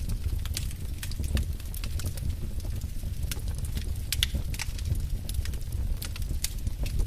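Wood fire in a fireplace crackling, with many irregular sharp pops and snaps over a steady low rumble.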